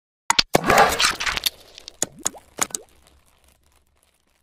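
Animated logo-intro sound effects: a few sharp clicks, a whooshing swell, then several quick pops that slide in pitch about two seconds in.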